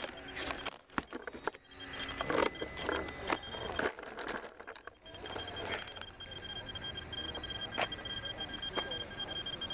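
Knocks and rustles of hands handling the model plane right at its onboard camera, then a steady high electronic whine with a rapidly pulsing thin tone from the plane's onboard electronics while it sits on the ground.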